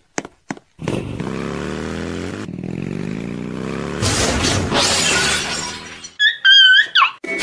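Motorcycle engine running and revving, then about four seconds in a loud crash with breaking glass as the bike goes down. Near the end comes a short, high, wavering cry.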